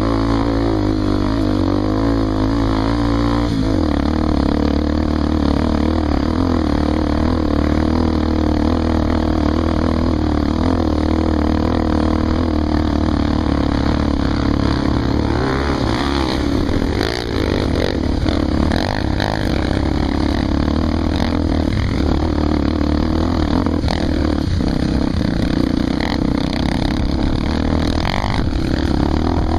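Honda XR 250 Tornado's single-cylinder four-stroke engine running steadily under way, its pitch dropping about three and a half seconds in. Scattered knocks and rattles come in over the second half.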